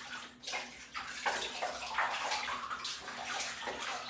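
Bathwater splashing and trickling in a small plastic tub as a hand scoops and pours it over a cat's chest and legs, in quick irregular strokes.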